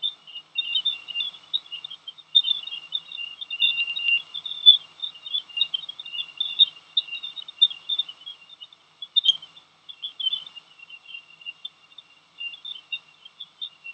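Jupiter's electromagnetic emissions, recorded by NASA spacecraft instruments and converted into audible sound: a dense, rapid chirping in a narrow high-pitched band, with one sharper click a little past the middle.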